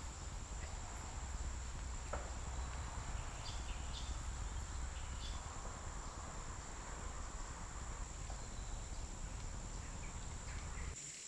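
Quiet woodland ambience: a low steady rumble with a thin, steady high-pitched whine over it and a few faint ticks. The rumble drops away near the end.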